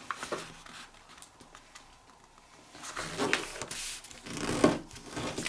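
A sheet of printer paper being handled and folded, with short rustles, scrapes and crackles as fingers slide over it and press a crease. A few faint ticks come near the start, and the paper sounds gather from about three seconds in.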